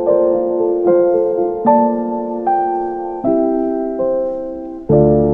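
Slow background piano music, with single notes or chords struck about once a second and left to die away.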